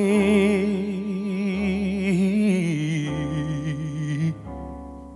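Male lead singer holding a long note with vibrato over a live band, the note stepping down in pitch partway through. The voice stops about four seconds in, leaving sustained keyboard chords and bass.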